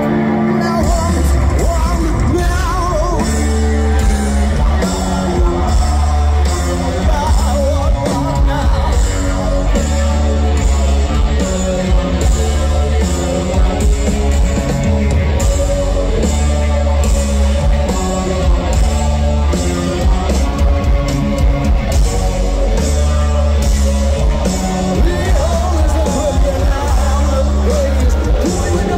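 Rock band playing live in a large arena, with singing over heavy bass and steady, hard-hit drums that come in about a second in.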